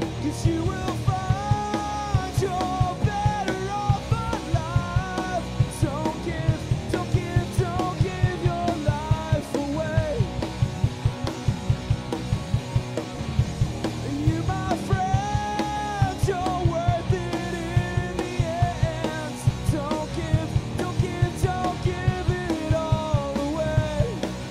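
Rock band playing a song: a drum kit keeps a steady beat under bass and guitars, with a melody line winding over the top.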